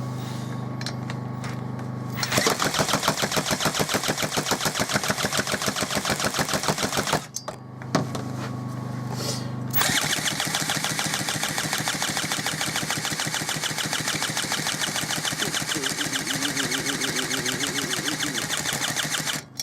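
The small two-stroke petrol engine of a Gardenline GLPC 41 chainsaw (a rebadged Einhell GC-PC 1335) being spun over without firing. It gives a fast, even train of compression strokes, about six a second, in two long spells after a steady low hum. It will not catch because the ignition has lost its spark, which the owner puts down to a failed ignition module.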